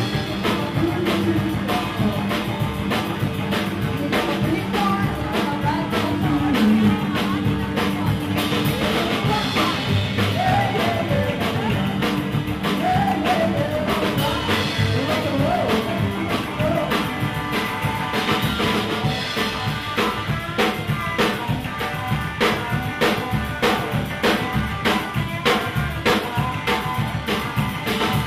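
Live band playing: a woman singing into a microphone over an upright double bass, a hollow-body electric guitar and a drum kit keeping a steady beat.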